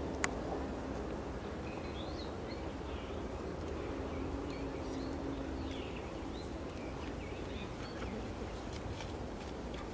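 Small birds chirping and twittering in short rising and falling notes over a steady low outdoor background noise, with one sharp click just after the start.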